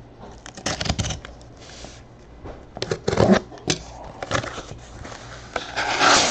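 Cardboard shipping case being opened by hand: scrapes, clicks and rustles of cardboard and packing tape in short spells, with the longest, loudest stretch of rustling near the end as the flaps are pulled apart.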